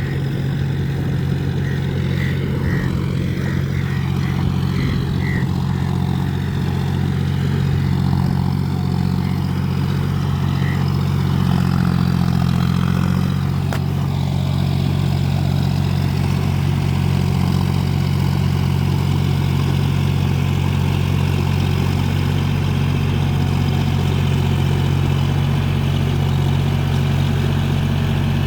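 John Deere 4WD tractor's diesel engine running at a steady speed while pulling a plough through deep mud.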